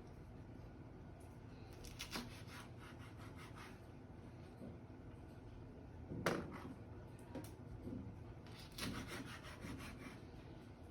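Knife chopping chili espada (long green chilies) on a cutting board: faint runs of quick taps, with the sharpest single chop about six seconds in.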